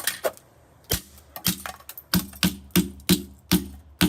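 Repeated sharp blows smashing a Gigabyte GC-W8867D-I Wi-Fi card, with wood involved: about ten cracking strikes that come faster in the second half, roughly three a second.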